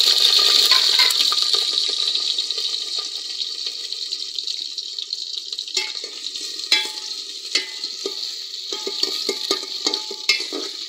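Cut potatoes frying in hot oil in an aluminium pot: a loud, steady sizzle that slowly eases. From about halfway through, a steel spatula turning them scrapes and clicks against the pot.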